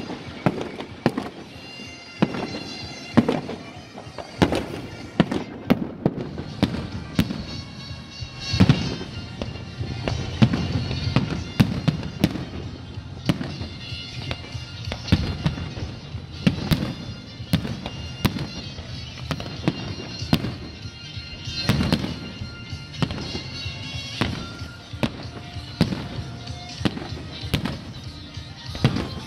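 Aerial fireworks display: shells bursting in an irregular string of sharp bangs, several a second, with music playing underneath.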